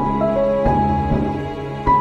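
Slow, gentle instrumental background music: held notes, with a new note struck every half second or so.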